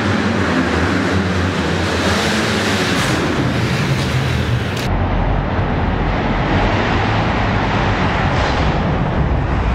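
Motocross dirt bike engine running hard on the track, its note shifting as the rider works the throttle, over a steady rushing din in an underground rock tunnel.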